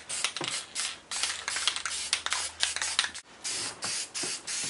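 Aerosol can of gloss clear coat hissing in a rapid string of short spray bursts. After about three seconds the bursts become separate puffs with brief gaps between them.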